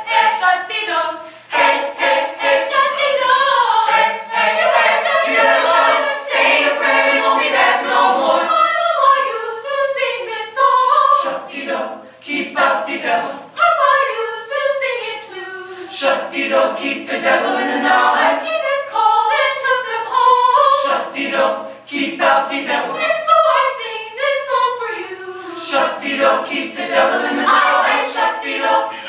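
A mixed choir of young men and women singing a cappella in harmony, with many short, sharp attacks on a steady rhythmic pulse.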